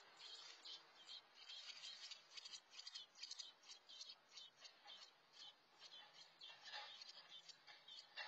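Faint, rapid high-pitched peeping, several short chirps a second: American robin nestlings begging in the nest.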